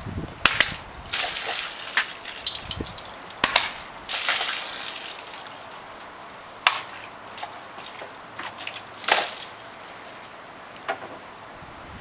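Kodachi short swords cutting through water-filled plastic jugs: several sharp cracks of the blades through the plastic. After the first two, water gushes and splashes out.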